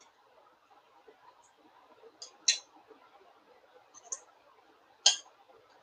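Kitchen knife cutting through a roti on a wooden board, tracing around an upturned mixer jar: a few short, sharp scraping clicks, the loudest about halfway through and near the end.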